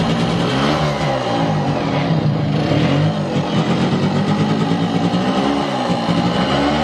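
Yamaha YA-6's 125 cc two-stroke single-cylinder engine running, its throttle blipped so the revs rise and fall several times. The engine is sound: it runs steadily with no abnormal noises.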